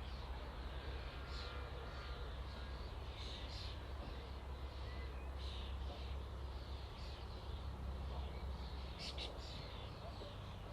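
A flock of common starlings chattering: many short, overlapping calls, with a steady low rumble underneath.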